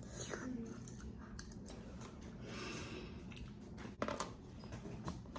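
Faint eating sounds: a plastic fork scraping and tapping on a paper plate of macaroni, with scattered small clicks.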